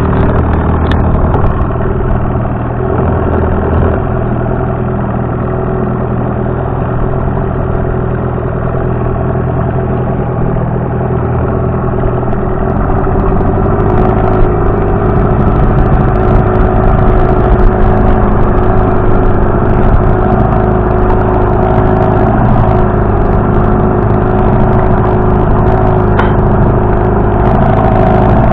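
Sea Pro 9.9 OTH outboard motor running steadily under way, pushing an inflatable boat. About halfway through it picks up a little and runs louder.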